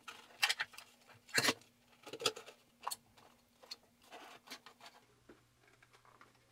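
Irregular light clicks, taps and scrapes of card against a plastic toy stove as a black card panel is worked and pushed into place, several sharp ticks spaced about half a second to a second apart.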